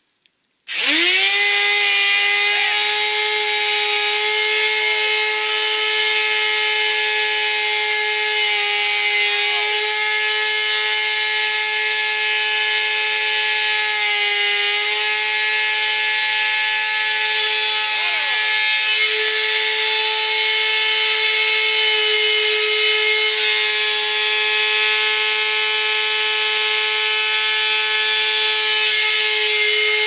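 Upright vacuum cleaner switched on about a second in. Its motor spins up with a quickly rising whine, then runs with a loud, steady high whine that dips briefly a couple of times. The machine is faulty, with smoke coming from its base as it runs.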